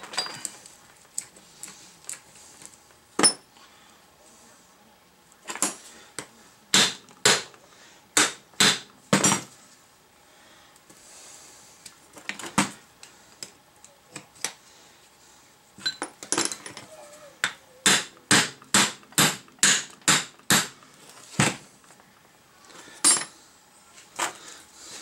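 Hammer blows on the steel spindle of an old Datsun truck's front suspension, knocking the kingpin loose: scattered single strikes at first, then a quick run of about ten blows at roughly two a second, and one last strike near the end.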